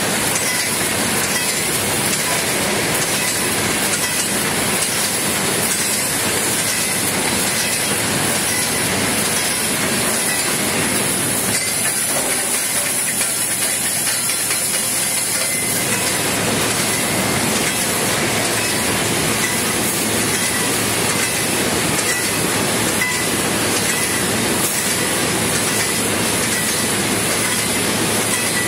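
Automatic wire mesh welding machine running: a loud, steady mechanical noise from the machine as it resistance-welds the cross wires and feeds the mesh, with a steady high tone running through it.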